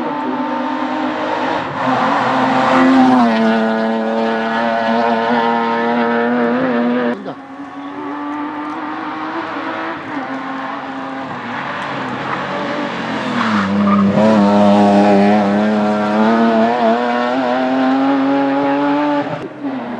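Hill-climb race car engine running hard at high revs, its note held for seconds at a time. It drops away sharply about seven seconds in, then builds back up and climbs steadily in pitch before cutting back again just before the end.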